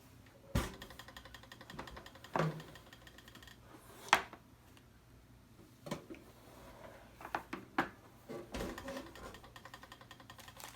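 Handling noise from unpacking a toaster oven: about seven sharp knocks and clatters of parts and packaging, the loudest about four seconds in, with light rustling between them.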